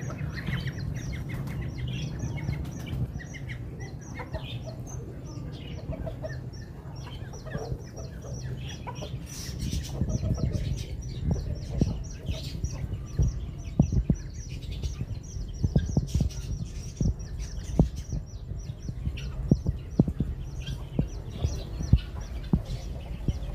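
Fowl clucking amid many short, high chirps from small birds, over a steady low rumble. From about halfway on, sharp knocks come every second or two and are the loudest sounds.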